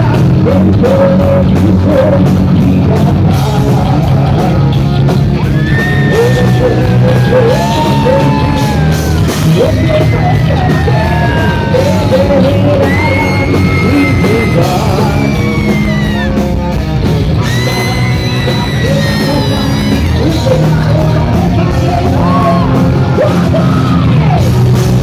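Live heavy metal band playing loud in a hall, with electric guitars and bass under a singer's high vocal lines that slide in pitch, recorded on a phone in the crowd.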